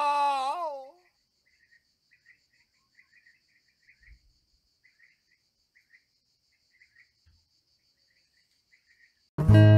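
A falling, wavering groan fades out in the first second. Then faint outdoor ambience: a steady, pulsing cricket trill with scattered bird chirps. Loud acoustic guitar music starts near the end.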